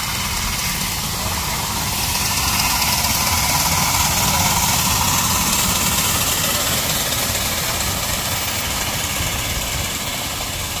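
A 1:12-scale live steam locomotive on 4.75-inch gauge track running past with its riders and cars, making a steady rumble and hiss. The sound grows louder a few seconds in and then fades as the train moves on.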